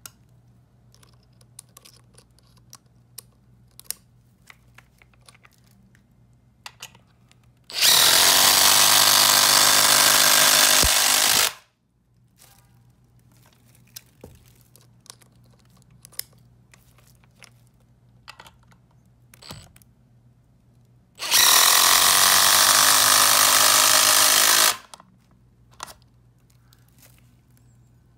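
Cordless power driver running twice, each time for about three and a half seconds, driving screws into a wooden beam. Faint clicks and knocks of handling come between the two runs.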